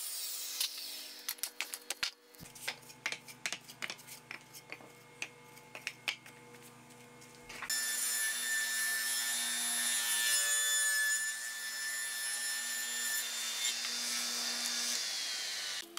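Small cedar pieces knocking and clacking on the table saw's top. About halfway through, the table saw is suddenly heard running with a steady high whine, and the blade rips through cedar near the end.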